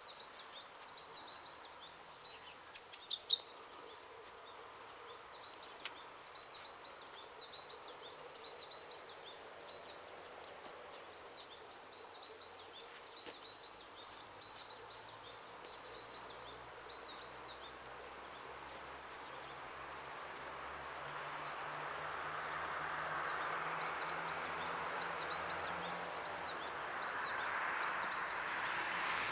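Small songbirds chirping in repeated short, high, quick phrases, with one louder call about three seconds in. A steady rushing noise swells over the second half.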